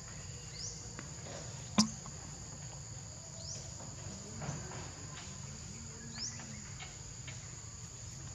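Steady high-pitched insect chorus, with a short rising sweep about every three seconds. A single sharp click about two seconds in is the loudest sound.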